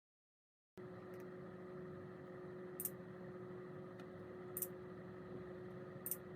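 Faint steady hum with a single steady tone running through it, starting abruptly about a second in, with three soft ticks spread across it.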